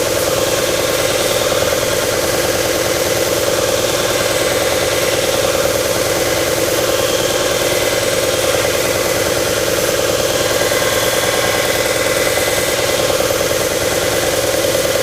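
Combination belt and disc sander running steadily and loudly, its belt grinding a wooden workpiece as a corner is rounded, with a steady hum under a noisy rasp.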